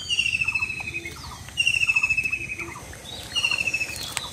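A bird calling: a rapid trilled call of about a second, falling slightly in pitch, repeated about every second and a half, with fainter short chirps beneath.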